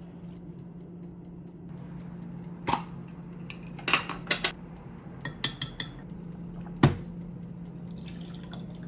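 Dishes and cutlery clinking: a few scattered sharp clinks and clatters, the loudest near the end with a dull knock, over a steady low hum.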